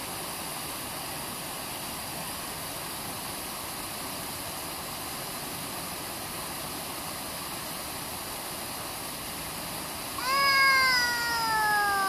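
Steady rush of water over a small stream waterfall. About ten seconds in, a young child lets out one long vocal sound that slowly falls in pitch, louder than the water.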